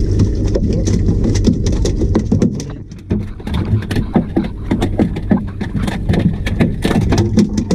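Boat outboard motor running with a low steady hum; about three seconds in it drops away and a quick run of sharp knocks and taps follows.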